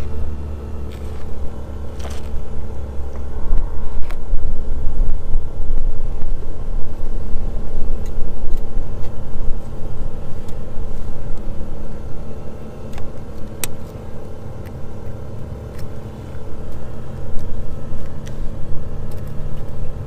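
Steady low rumble of an engine running, with a constant hum, under a few sharp metallic clicks as a snap ring is worked onto the axle shaft with snap ring pliers.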